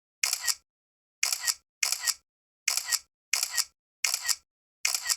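Camera shutter firing again and again, about seven times, each a quick double click with silence in between.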